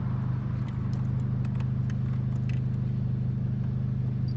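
Starter motor cranking the 1992 VW Voyage GL 1.8's four-cylinder engine in a steady, even rhythm without it catching, part of a hard start. A few light clicks sound in the first half.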